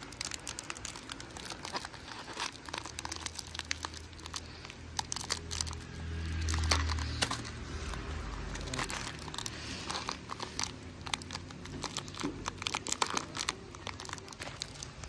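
Plastic Oreo biscuit wrapper crinkling and crackling in the hands as it is worked and torn open, in irregular bursts of small crackles. A brief low rumble comes about six seconds in.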